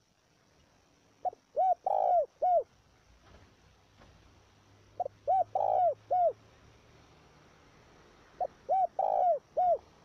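Spotted dove (chim cu gáy) cooing its song: three identical phrases about three and a half seconds apart, each a short clipped note followed by three rounded coos, the third note the longest.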